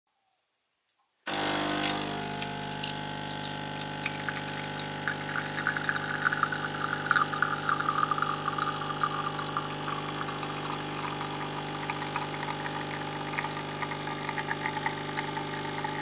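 Espresso machine's pump switching on about a second in and running with a steady hum, over the crackle of espresso streaming into a glass.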